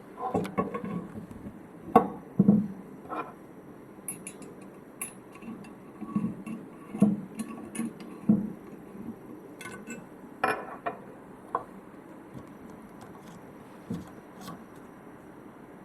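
Pipe clamps and pipe fittings clinking and knocking together as they are handled and fitted by hand, in irregular taps. The taps come often through the first ten seconds and only now and then after that.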